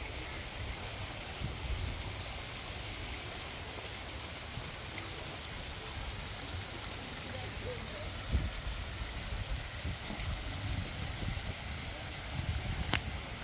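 A steady, high-pitched insect chorus buzzes throughout, with low wind rumble and a few bumps on the phone's microphone and a single sharp click near the end.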